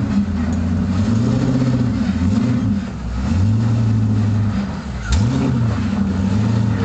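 Rock-crawling buggy's engine revving in repeated throttle blips as it climbs rock ledges, the pitch swelling and dropping about three times, with a sharp rise about five seconds in.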